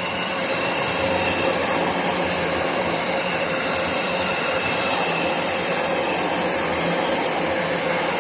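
JR East E257 series electric train passing close by: a steady rush of wheels on rail with a faint held hum running through it.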